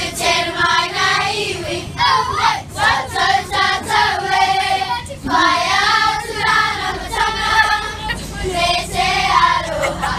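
A group of young girls singing a kapa haka action song (waiata-ā-ringa) together in unison, in short sung phrases with brief breaks between them.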